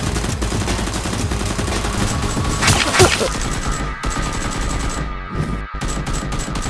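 Automatic gunfire sound effects, a dense rattle of rapid shots, with one louder burst about three seconds in.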